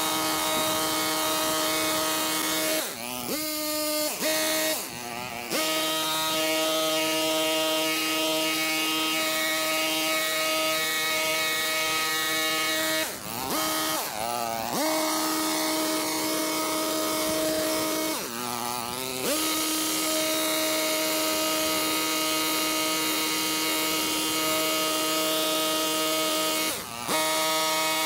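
Engine of a Stihl KombiMotor pole hedge trimmer running at high revs. The revs dip and swoop back up several times as the throttle is eased off and opened again.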